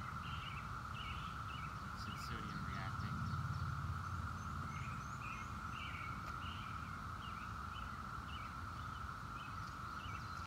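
Outdoor ambience: birds calling over and over above a steady high-pitched hum, with a low rumble swelling a couple of seconds in.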